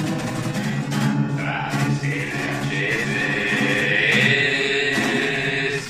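A man singing an Italian pop song to his own strummed acoustic guitar. From about two seconds in he holds one long note.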